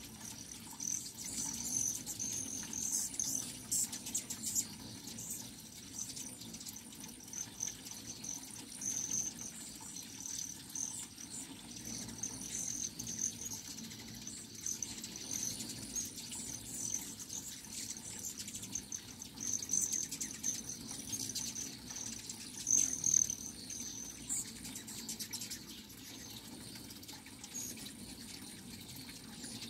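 A crowd of hummingbirds at feeders: a constant stream of high, rapid chips and twitters over the steady buzz of many hovering wings.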